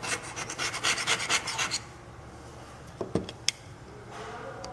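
Hand scraper rasping old layered paint off wood in a quick run of short strokes for about two seconds, followed by a few light clicks and knocks.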